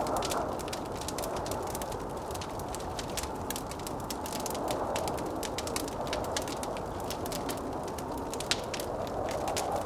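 Wood fire crackling with many small sharp pops, one louder than the rest about eight and a half seconds in, over a steady blizzard wind that swells a little near the end.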